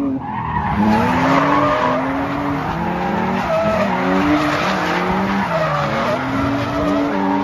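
Nissan 180SX drifting past at close range: the engine revs up and down repeatedly while the rear tyres skid and squeal.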